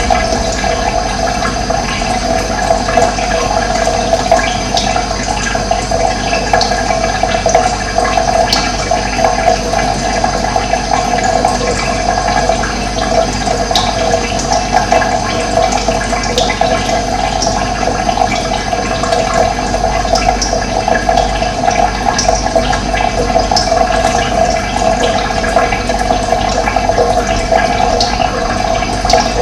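Running water flowing steadily with a loud, even rush and no break.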